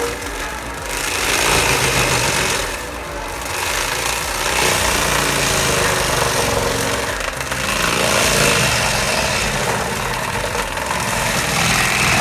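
Heavy machinery running: an engine under steady load with loud, harsh mechanical noise over it, easing off briefly twice.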